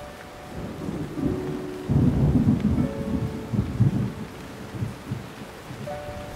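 A deep, uneven, thunder-like rumble, loudest from about two to four seconds in, under a few held musical notes.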